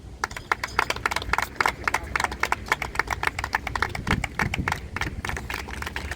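A small group of people clapping, a fast, uneven patter of sharp claps.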